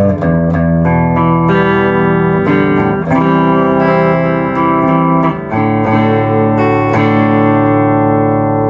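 Epiphone Les Paul electric guitar played clean through an amp with both pickups on and wired out of phase, picking a string of ringing notes and chords with a throaty tone.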